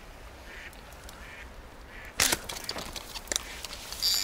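Faint short animal calls repeat about every half second. About halfway through, a sudden loud knock is followed by a scatter of clicks and rustling.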